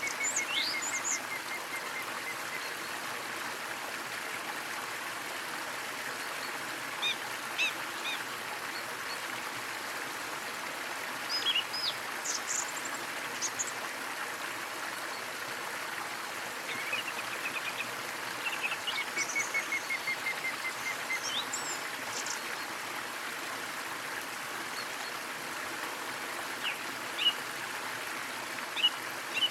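Small waterfall splashing steadily, with birds calling over it: scattered sharp high chirps, and twice a quick trill of evenly spaced notes, about a second in and again near twenty seconds.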